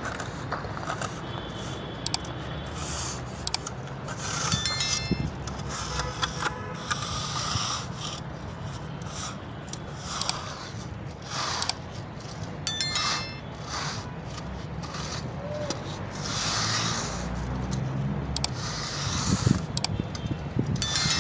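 Metal straightedge scraped across a bed of sand in repeated strokes, screeding it level for paving blocks, with two sharp metallic clinks.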